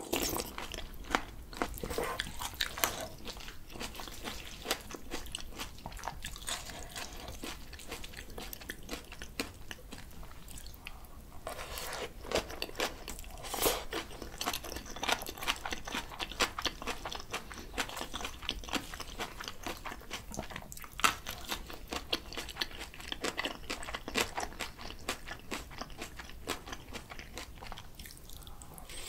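Close-miked chewing and crunching of mouthfuls of bibimbap mixed with raw spring cabbage geotjeori and julienned radish salad: irregular wet crunches, with brief lulls about ten seconds in and near the end.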